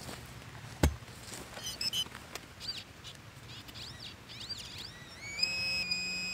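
A sharp knock about a second in, then small birds chirping. From about five seconds a handheld metal-detecting pinpointer probe, its tip pushed into the soil of a freshly dug hole, sounds a steady high electronic tone that signals a buried metal target close to the tip.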